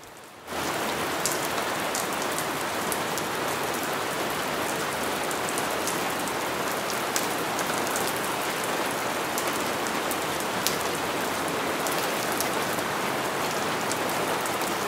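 Steady rain, an even hiss with scattered sharp drop ticks, starting abruptly about half a second in.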